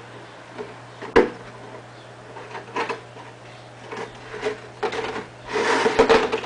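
Handling clicks and rustling as the motherboard's stock heatpipe chipset cooler is worked loose and lifted off: one sharp click about a second in, a few lighter clicks, then a longer rustle of the clear plastic tray as the board is shifted near the end.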